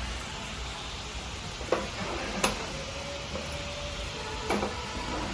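Small metal valve-train parts clicking sharply as they are set into a diesel engine's cylinder head, three clicks over a steady hiss.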